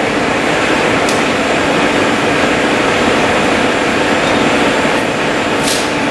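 Herbert 9C combination turret lathe running, a loud steady mechanical hum from its headstock drive. A few sharp clicks come through about a second in and near the end as the carriage and turret controls are worked.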